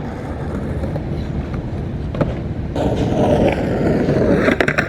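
Skateboard wheels rolling over rough pavement, a steady rumble, with a few sharp clacks near the end.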